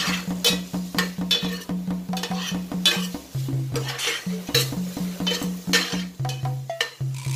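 A spoon stirring and scraping pork pieces and shallots around a stainless steel frying pan in quick repeated strokes, over background music with a steady bass line.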